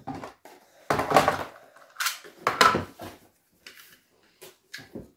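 Knocks and clatter of plastic toy-blaster parts and cardboard boxes being handled on a table, in separate bursts: the loudest about a second in and again about two and a half seconds in, then a few smaller clicks.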